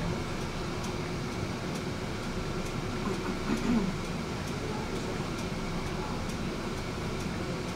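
Tram running along its track, heard from on board: a steady rolling rumble.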